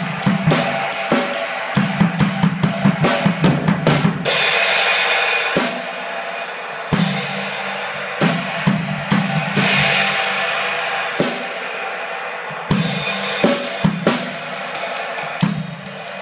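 Drum kit played around a Zildjian 24" K Custom Dry Complex Ride II ride cymbal: a quick run of strokes with low drum hits for about four seconds, then several long cymbal washes left ringing out, and a steady pattern of strokes again near the end.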